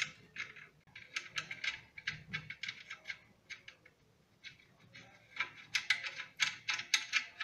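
Small metal clicks and ticks in irregular runs as a long toilet tank-to-bowl bolt and its wing nut are unscrewed and handled, the nut turning on the threads.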